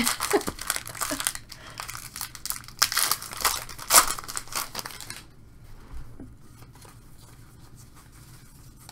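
Plastic wrapper of a trading card pack being torn open and crinkled in the hands, a dense crackling that stops about five seconds in, leaving only faint sounds of the cards being handled.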